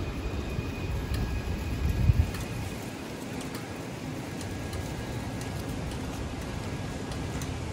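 City street ambience: a steady low rumble of traffic, heavier and gustier for the first two seconds, with faint high steady tones and a few faint clicks.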